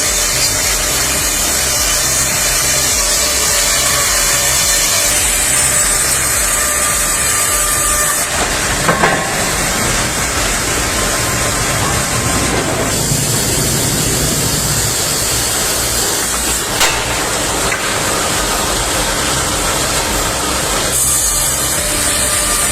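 Powered wood-cutting machinery running and working through wood, with a steady rasping noise over a motor hum. It changes abruptly a few times, with a couple of sharp knocks partway through.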